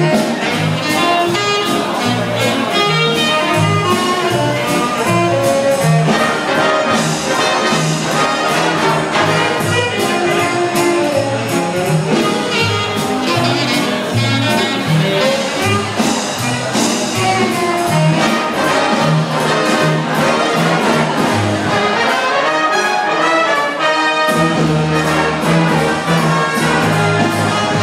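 A big band playing swing jazz: trumpets, trombones and saxophones carry the tune over a steady beat.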